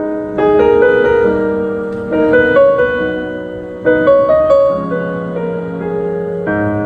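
Instrumental passage of a slow pop ballad: piano playing sustained chords, a new chord struck about every two seconds, with no singing.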